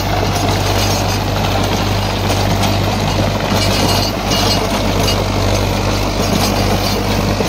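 Mahindra Arjun 555 tractor's four-cylinder diesel engine running steadily, with a constant low hum.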